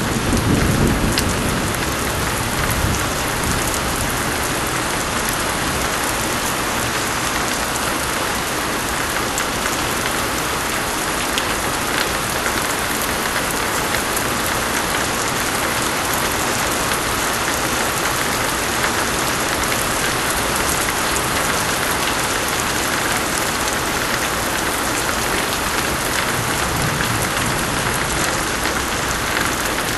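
Steady heavy rain pouring down onto a surface, a dense even hiss. A low thunder rumble dies away in the first couple of seconds.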